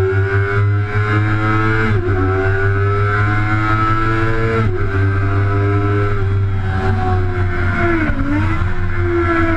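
Sport motorcycle engine at full throttle on track, rising in pitch through the gears with sharp upshift drops about two seconds in and just before five seconds in. Near the end the pitch dips and picks up again as the bike slows for a corner.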